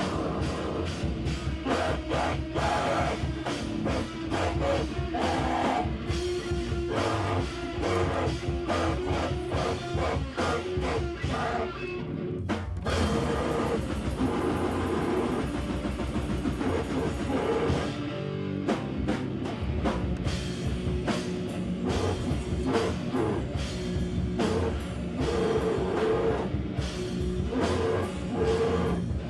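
Live band playing loud, heavy rock-style noise music with a pounding drum kit and distorted guitar. About twelve seconds in the drum hits stop and a sustained wash of sound carries on for several seconds, and the full band comes back in after about eighteen seconds.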